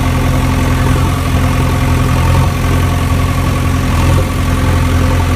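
Engine idling steadily: a continuous low hum with several steady tones.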